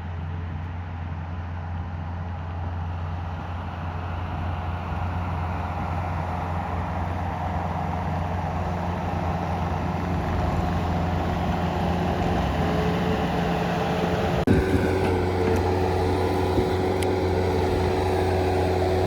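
A vehicle engine running steadily, slowly growing louder. About fourteen seconds in, the sound changes abruptly with a brief knock, and the engine hum carries on at a slightly different tone.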